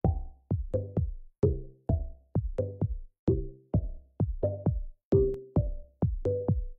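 Electronic background music on a drum-machine beat: sharp hits in a repeating three-hit pattern of a little over a second, each with short pitched notes that die away quickly.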